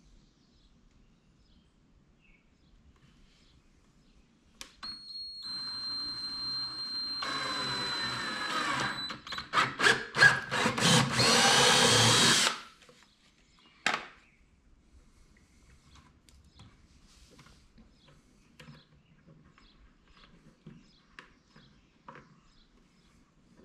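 Cordless drill spinning up with a steady high whine, then boring through the wall of a plastic 5-gallon bucket, getting louder and rougher for its last few seconds before it stops suddenly. A single short knock follows a second or so later.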